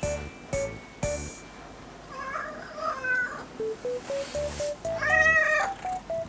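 Domestic cat meowing: a couple of short, softer calls about two to three seconds in, then one louder, longer meow about five seconds in. Light background music with a steady beat plays throughout.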